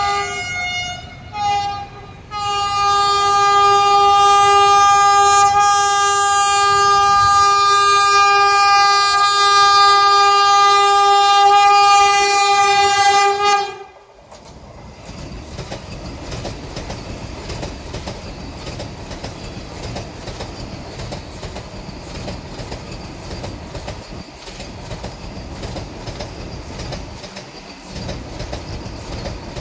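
Vande Bharat Express electric trainset sounding its horn: a couple of short blasts, then one long blast of about eleven seconds that cuts off suddenly. After that the train runs past with steady wheel-on-rail clatter.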